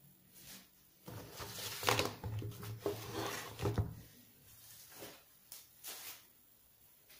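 Handling noise as a condenser microphone in a metal shock mount and its cable are moved and laid out on a tabletop: rustling, scraping and light knocks for about three seconds. A few soft clicks follow.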